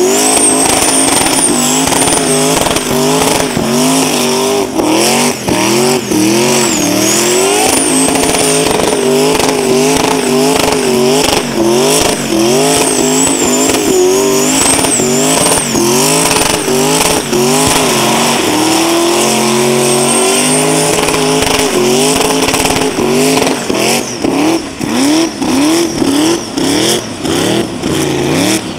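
Twin-turbo, supercharged Audi engine held at high revs through a burnout, its pitch wavering up and down, with tyres squealing. In the last few seconds the revs come in short choppy blips.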